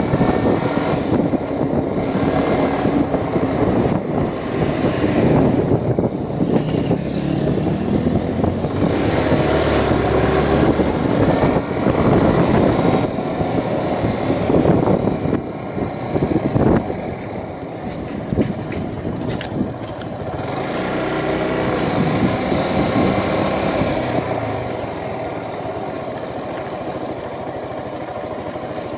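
Motorcycle engine running on the move, its pitch rising and falling with the throttle; it eases off and runs quieter from about halfway through.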